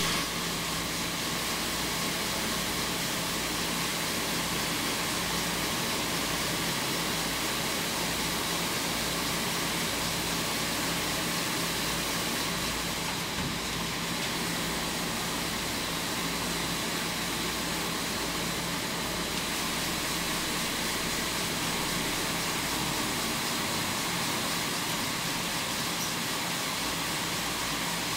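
Steady hum and hiss of machinery running in a sock knitting factory, holding level without a break.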